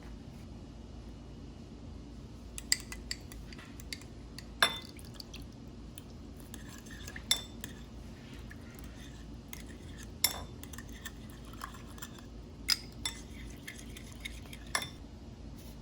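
Kitchen utensils and dishes clinking and tapping: a series of sharp, irregularly spaced clinks, the loudest about four and a half seconds in, over a steady low hum.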